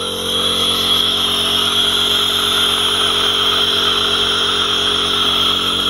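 Compressor nebulizer running: a steady motor hum with a constant hiss of air and medicine mist through the face mask.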